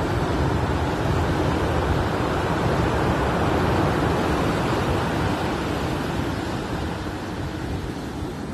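Rough sea surf breaking and washing up a pebble beach: a continuous rush of water that eases off gradually in the second half.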